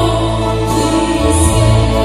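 Woman singing a Mizo gospel song into a microphone over amplified backing music, with held bass notes that change about a second in.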